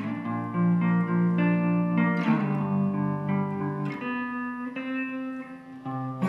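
Electric guitar alone, chords ringing out and changing every second or so, with a harder strum about two seconds in and a brief dip in level near the end.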